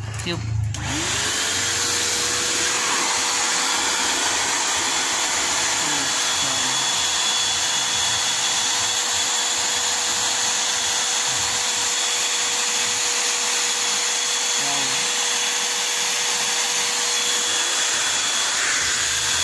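Vacuum cleaner modified to blow air through its hose, with its foam filter removed, switched on: the motor spins up within about a second to a steady high whine over a strong, even rush of air.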